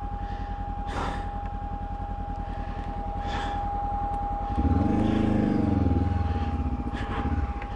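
Honda CB500X's parallel-twin engine running at idle, with the revs lifted a little about halfway through, rising and falling back over a couple of seconds before settling.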